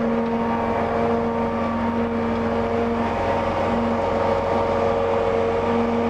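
Heavy diesel truck engine, the one carrying the volumetric concrete mixer, running steadily at idle with a constant hum and a steady higher tone over it.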